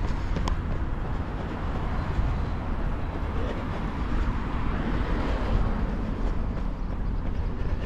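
City street noise picked up by a moving camera: a steady hiss with a heavy, uneven low rumble, like traffic.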